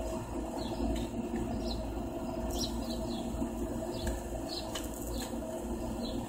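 Small birds chirping: short, high chirps every half second or so, over a steady low hum.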